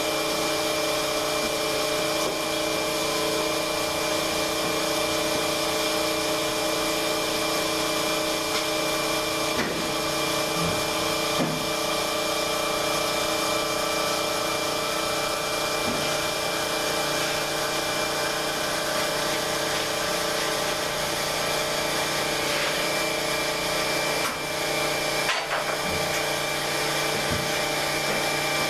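A motor-driven tool or machine running steadily with a constant whine, with a few faint clicks and knocks over it.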